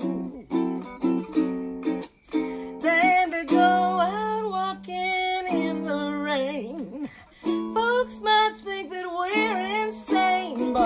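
A ukulele strummed in a steady rhythm of chords, with a woman singing long held notes over it from about three seconds in.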